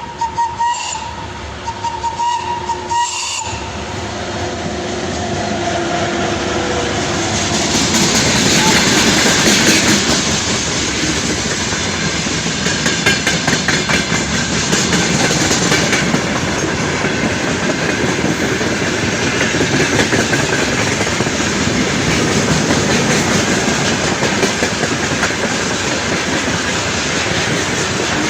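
VL80k electric locomotive sounding a run of short rhythmic whistle blasts that stop about three seconds in. It then passes at the head of a freight train, and the wagons roll by loud and steady with clickety-clack over the rail joints.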